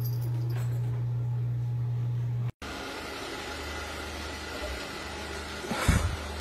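A steady low hum, then after a sudden cut a robot vacuum cleaner running with an even, steady whir. A short bump near the end is the loudest sound.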